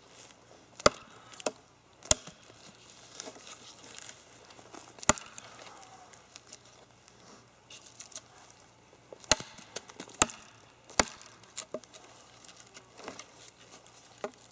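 Terava Skrama heavy Finnish knife chopping into a dry standing spruce trunk about 3.5 to 4 inches thick: a string of sharp woody chops at uneven intervals, with pauses between. The blade is biting deep into the wood.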